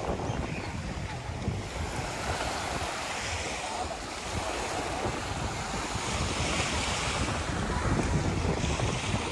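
Small waves breaking and washing up a sandy shore, with wind gusting on the microphone.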